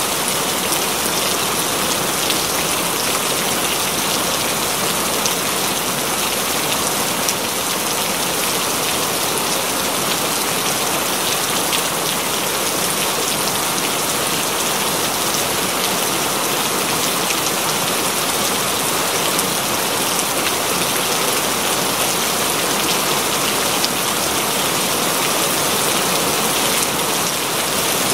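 Steady rain falling: a dense, even hiss with the patter of individual drops, and no thunder.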